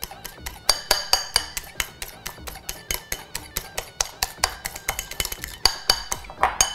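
A whisk beating against the side of a bowl in fast, steady strokes, about six clinks a second, as powdered sugar and orange juice are whisked into a glaze.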